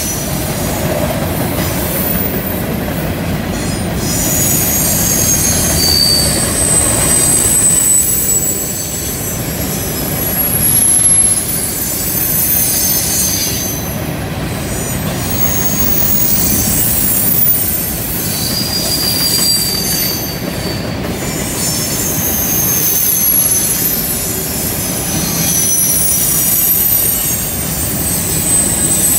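Covered hopper cars of a freight train rolling past on a curve: a steady rumble of steel wheels on rail, with high-pitched wheel squeal that comes and goes as the flanges grind through the curve.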